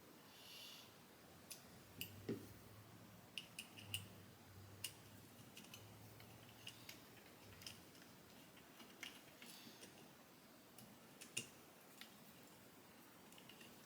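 Faint, irregular small clicks and taps of metal clipper blade parts being handled and fitted together, over near silence.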